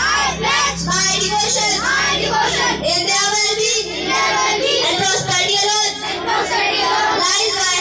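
A group of children chanting together in unison, their many voices overlapping.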